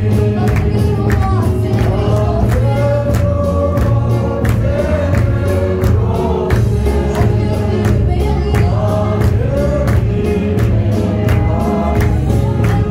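A congregation singing a Mizo gospel song together over a steady beat.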